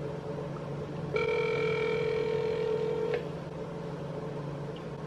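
Ringback tone of an outgoing phone call heard through a phone's speaker: one steady ring about two seconds long, starting about a second in. The called person is not answering.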